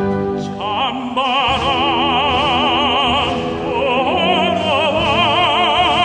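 Operatic tenor singing a Korean art song (gagok) with wide vibrato, entering about half a second in over instrumental accompaniment.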